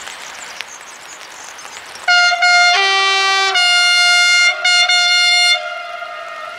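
Train horn sounding a run of blasts: two short toots, then longer held blasts, with a second, lower note joining briefly in one of them. It stops about a second before the end, leaving a fading tail over steady background noise.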